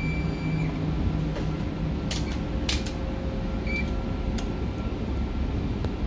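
Steady low machine hum of a fan or ventilation, with a few sharp clicks and taps as multimeter probes and a small circuit board are handled on a bench, about two to four seconds in.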